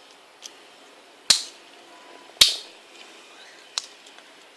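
Victorinox Swiss Army pocket knife blades snapping on their backsprings: three sharp metallic clicks with a brief ring, about a second apart, and a couple of softer ticks between them.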